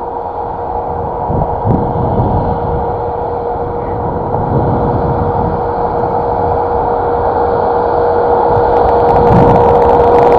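Road vehicle running, a steady rumble with a constant whine, growing slowly louder.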